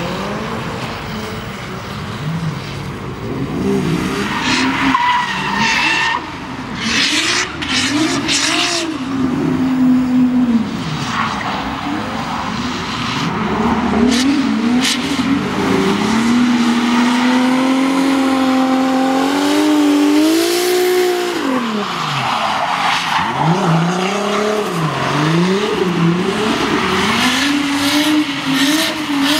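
Toyota Supra drift car's engine revving up and down through the slides while its rear tyres screech and skid on the tarmac. About halfway through, the revs hold steady for several seconds in a long slide, then fall away.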